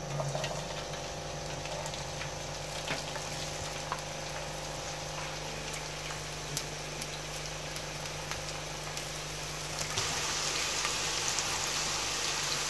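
Sliced onions going into hot oil and frying, a steady sizzle with scattered crackles and pops. The sizzle grows louder about ten seconds in.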